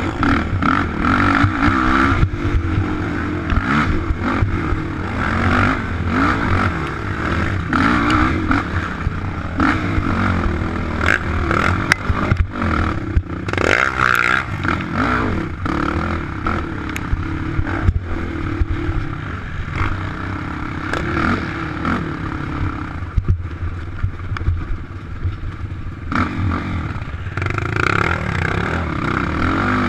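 Sport ATV engine running hard, its pitch repeatedly rising and falling as it revs up and backs off, with rattling and knocks from the quad bouncing over rough dirt, heard from on board the machine.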